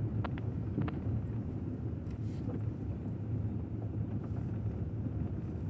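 Car driving through a muddy puddle on a dirt road: a steady low rumble of engine and tyres, with a few light clicks in the first second.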